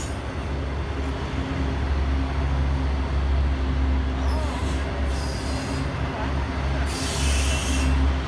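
Intermodal freight train of container cars rolling past: a steady low rumble of wheels on rail, broken by several bursts of high hiss from the wheels, the longest near the end with a thin squeal in it.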